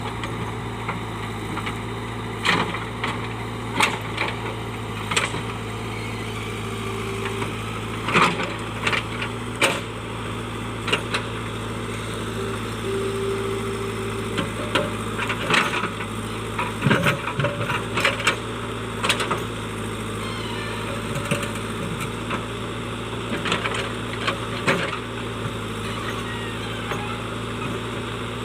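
JCB digger's diesel engine running steadily, with irregular sharp knocks and scrapes as the bucket strikes and works stones and rocks in the soil.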